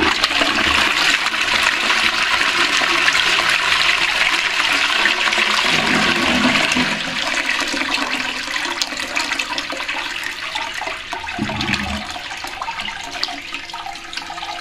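Toilet flushing: a loud rush of water into the bowl for about the first seven seconds, easing into quieter running water as the flush dies down and the cistern refills.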